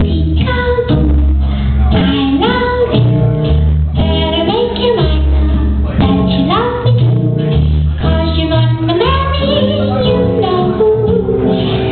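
Loud pop song with a female lead vocal over a heavy, steady bass line.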